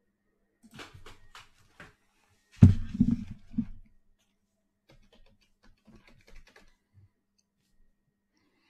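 Typing on a computer keyboard: a run of keystrokes about a second in, then a louder, heavier cluster of strokes with a thud around the three-second mark, then lighter scattered taps.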